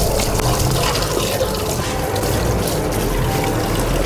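Tap water running steadily into a sink, splashing over raw chicken being rinsed by hand under the stream.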